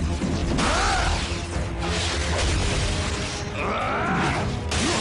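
Animated-series soundtrack: dramatic background score with a low rumble and robotic mechanical effects. Two short pitched sounds rise and fall, about a second in and again near four seconds.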